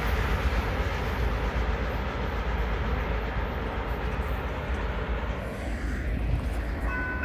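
Rumble of a freight train rolling away down the track, its rail noise thinning out about five seconds in. A steady high tone starts right at the end.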